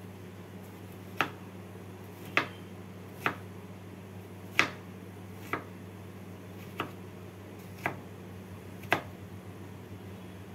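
Kitchen knife chopping snake gourd on a wooden cutting board: eight sharp knocks, roughly one a second, over a steady low hum.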